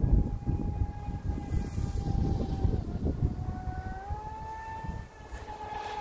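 Radio-controlled speed boat's motor whining from far out on the water, holding a steady pitch, dipping briefly about halfway, then climbing again as the throttle changes. Low wind rumble on the microphone runs underneath.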